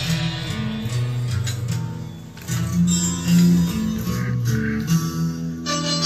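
Karaoke backing track playing an instrumental passage between sung lines, led by guitar, with no vocal.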